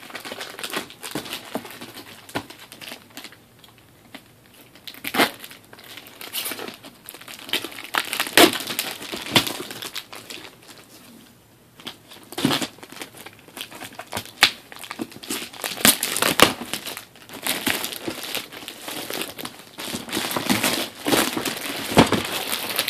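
Shipping packaging being opened by hand: irregular crinkling and crumpling with some tearing, in bursts with short quieter pauses.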